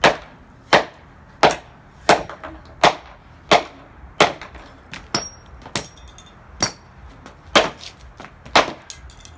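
A hammer repeatedly striking the speaker of a dismantled alarm clock radio: about a dozen hard knocks at a steady pace, roughly one every three quarters of a second.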